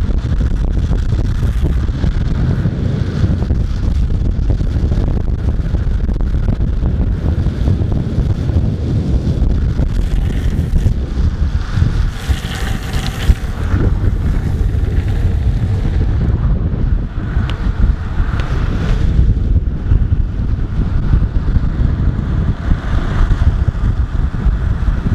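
Wind rushing and buffeting over the microphone of a skateboarder riding fast downhill: a steady low rumble, with brighter hissing swells about halfway through and near the end.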